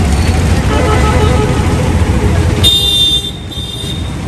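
Road traffic: a steady low engine rumble, with a high-pitched vehicle horn tooting for about a second, two and a half seconds in.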